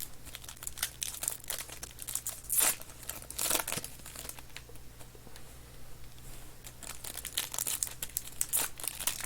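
Plastic wrapping on trading card packs crinkling and tearing as they are opened by hand, in a run of short rustles. The two loudest come about two and a half and three and a half seconds in.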